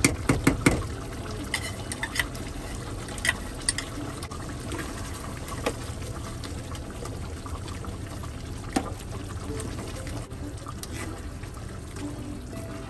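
A metal spoon knocks several times against the pan about the first second as liver spread is tapped off it. Then a plastic ladle stirs chicken pieces through thick simmering caldereta sauce in a nonstick pan, with a wet sloshing and a few light knocks.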